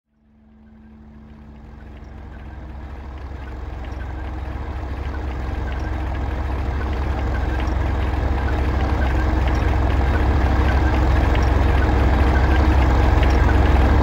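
A low, rushing rumble fades in from silence and keeps growing louder, with a faint steady hum under it.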